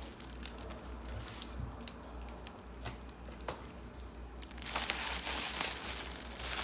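Packaging being handled: light clicks and taps, then a burst of rustling about five seconds in, over a low steady hum.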